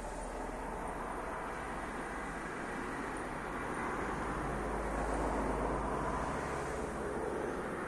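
A vehicle passing out of sight, a steady rushing noise that swells slowly to its loudest about five seconds in and then fades.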